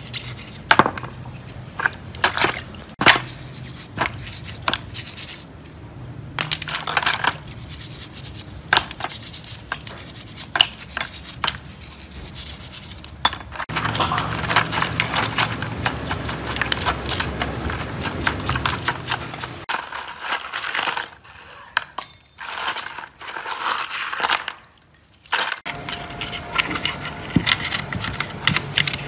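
Small metal screws and springs clinking and scraping against each other, the brush and the basin as they are scrubbed in a basin of dirty cleaning liquid, with many sharp irregular clinks.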